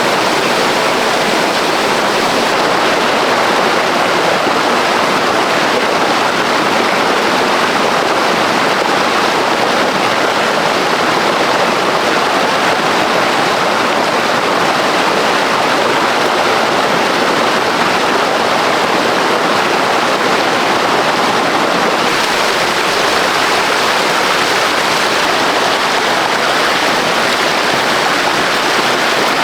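Rushing water of waterfall rapids, a loud steady rush with no breaks.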